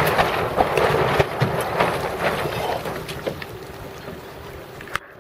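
Gusty force 5 to 6 wind buffeting the microphone, with the rush and splash of water around a small sailing boat. The wind noise eases over the last couple of seconds.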